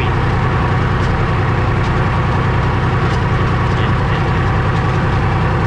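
Valmet 359D tractor's diesel engine running steadily under load while pulling a seed drill, heard from inside the cab.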